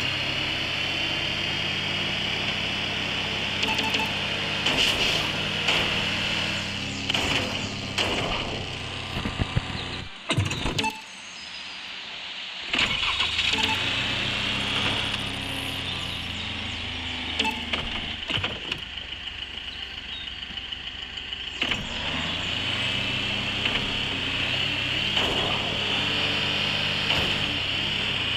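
A 4x4's engine running as it drives off-road, with frequent knocks and rattles from bumps. The engine sound drops away about ten seconds in and picks up again about two seconds later.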